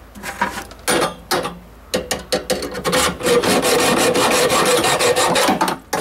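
Saw cutting through a copper water pipe: a few separate rasping strokes, then fast continuous sawing for about four seconds that stops just before the end as the cut goes through.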